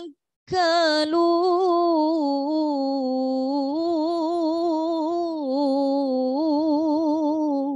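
A woman reciting the Quran in the melodic tajwid style. After a short breath she holds one long ornamented note for about seven seconds. Its pitch wavers in small turns, sinks a little in the middle and breaks into quick trills near the end.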